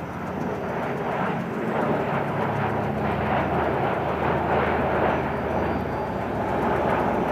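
Lockheed C-130 Hercules flying overhead, its four turboprop engines making a steady drone that swells a little over the first couple of seconds.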